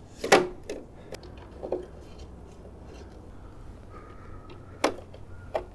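Headlight trim bezel being pressed into place over a Jeep Cherokee XJ headlamp by hand: a few short, sharp clicks and taps, the loudest near the start and about five seconds in.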